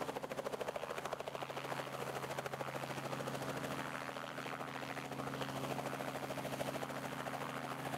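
Light helicopter flying low and coming in to land: the main rotor beats rapidly and evenly over a steady engine hum.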